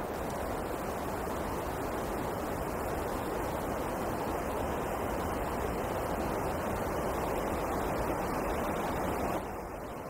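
Wind blowing: a steady, even rush that builds slightly and then drops away abruptly near the end.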